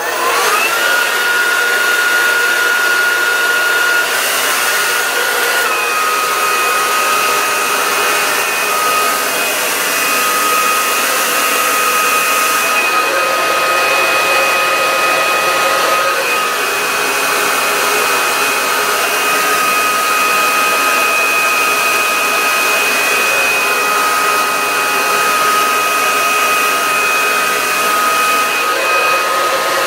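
T3 hair dryer switched on at its most powerful setting: the motor whine rises as it spins up, then it runs steadily with a loud rush of air over a high whine that dips slightly in pitch now and then.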